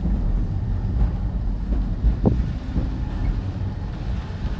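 Great Orme Tramway cable-hauled tramcar running downhill: a steady low rumble of its wheels on the rails, with one brief sharper noise a little over two seconds in.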